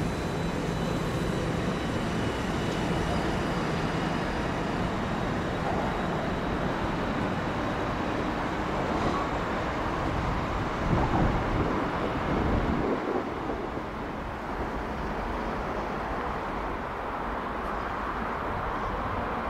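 Trackside train noise: a steady rumble with a faint high whine in the first few seconds, growing louder about eleven seconds in, after which the low rumble drops away.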